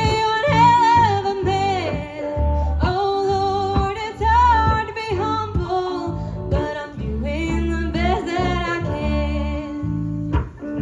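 A live country band playing the opening of the song: a lead melody line that slides between notes with vibrato, over guitar and steady bass.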